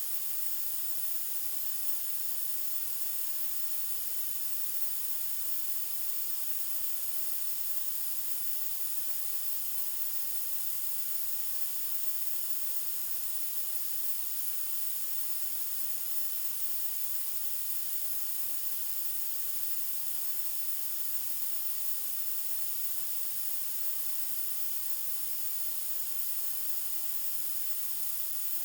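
Synthetic white noise: a steady, unbroken hiss, strongest in the high treble.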